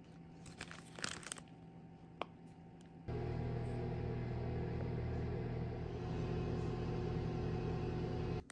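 A few light clinks and taps from a metal muffin tin being handled, then from about three seconds in the steady hum of a convection oven's fan running while it bakes.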